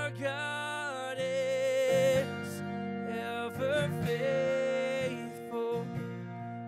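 A man singing a slow worship song with held, wavering notes, accompanied by acoustic guitar.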